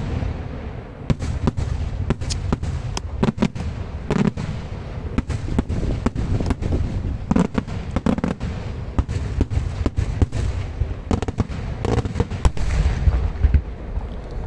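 Daylight fireworks display: aerial shells bursting in a rapid, irregular string of sharp bangs over a continuous low rumble of overlapping reports.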